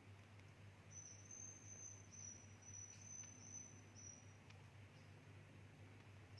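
Faint roosting calls of swiftlets: a quick run of about eight short, high chirps over some three seconds, over a low steady hum.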